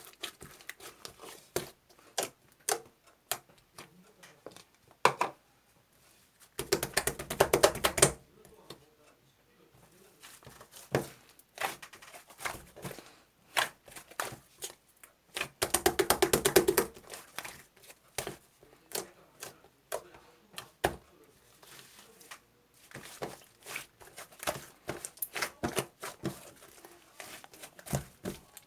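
Scattered sharp clicks and taps from small objects being handled, with two rattling runs of rapid clicks, each about a second and a half long, about a quarter and about halfway through.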